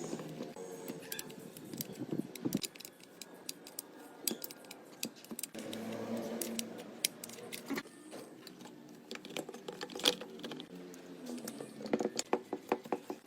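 Small metal parts and hand tools clicking and clinking in irregular sharp taps, the loudest about ten seconds in.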